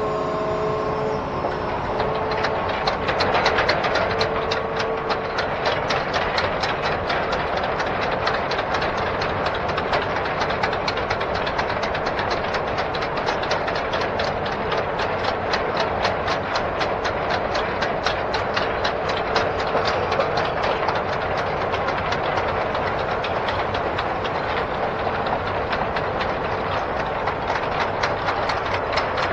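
Hitachi Zaxis 210F amphibious excavator travelling on its pontoon tracks: the diesel engine runs under a rapid, steady clatter of track links that sets in about two seconds in. A whining tone at the start fades out within the first few seconds.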